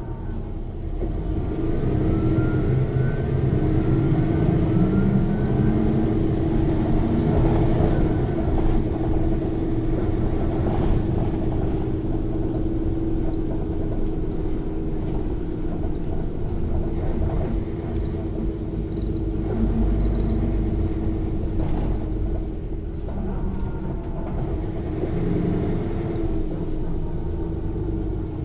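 Mercedes-Benz O 405 N1 city bus heard from inside the cabin while driving: the engine runs loud under load, with a whine from the rear-axle differential that rises in pitch over the first few seconds and then holds steady.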